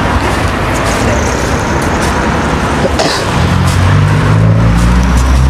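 Motor vehicle engine hum with road noise; the low hum grows louder about three and a half seconds in.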